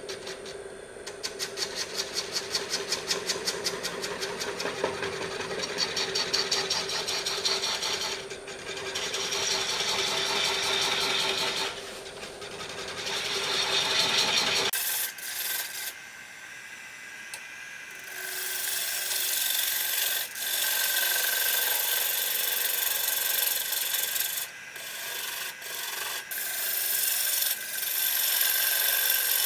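Sandpaper rubbing on a cottonwood platter turning on the lathe: a scratchy hiss that swells and fades in waves over a steady hum. About halfway through the hum drops out and the rubbing goes on, thinner and higher.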